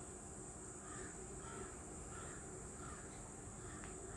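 Crows cawing faintly in the background, a short call every half second or so, over a steady high hiss. A single light click comes near the end.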